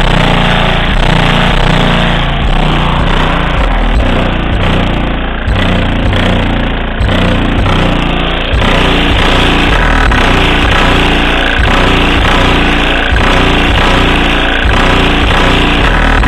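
Audioque HD3 12-inch car subwoofers playing bass-heavy music very loudly, with a pulsing low end. The sound is picked up by a phone lying on the vehicle's roof, so it comes through heavily distorted and rattly.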